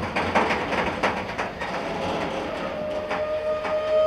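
A train's wheels clacking over the rails, then a train horn sounding one long steady note from a little past halfway, loudest near the end.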